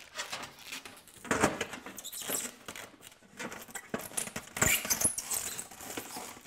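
Protective plastic film being peeled off a thin reflective aluminum skylight-tube sheet, crackling and rustling in irregular bursts as the sheet is handled, loudest about a second and a half in and again near five seconds in.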